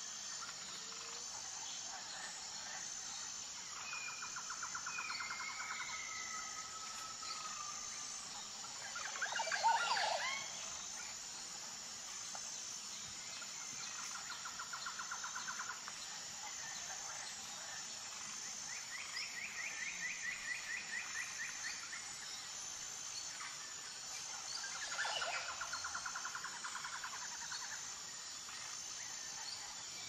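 Forest ambience: small birds singing rapid trills of repeated notes several times, with a gliding whistle early on, over a steady high insect drone with an even pulse. The loudest sound is a sharp sweeping bird call about ten seconds in.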